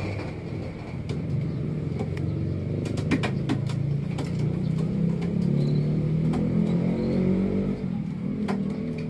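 An engine running, its pitch climbing through the middle seconds and easing off near the end, with scattered light clicks over it.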